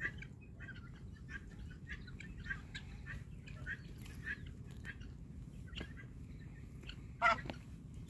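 Free-ranging poultry calling: a steady run of short calls about two a second, with one much louder call near the end.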